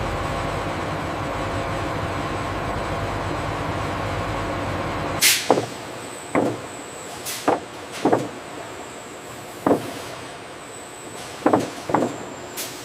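Factory machinery: a steady rumbling hum for about five seconds, then it cuts to a quieter background broken by a series of sharp mechanical clunks and hissing clicks, about nine in all.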